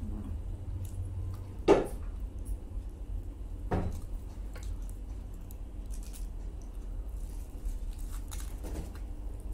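Eating sounds: a foil-wrapped chicken salami roll handled and bitten, with two short sharp sounds about a second and a half and nearly four seconds in, the first the loudest, and a few fainter ones later, over a steady low hum.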